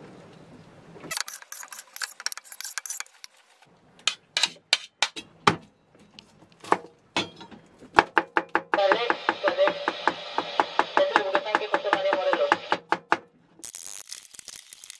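A lime squeezed by hand over raw fish, then a kitchen knife chopping garlic on a cutting board: separate chops at first, then a fast run of mincing strokes, and the blade scraping across the board near the end.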